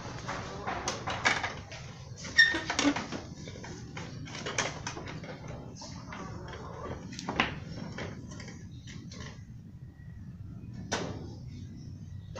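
Plastic front fairing panel of a Kymco Super Z 125 scooter being fitted by hand: irregular knocks, clicks and rattles as the panel is pushed and worked into place. The loudest knock comes about two and a half seconds in.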